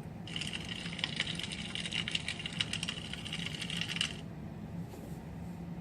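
Cellophane plastic wrap crumpled and crinkled as a Foley stand-in for a crackling fire: a dense run of fine crackles lasting about four seconds, stopping suddenly.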